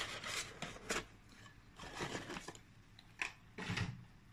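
Cardboard product box being opened and handled, with several short bursts of rustling and scraping as its lid is lifted and the sensor is taken out.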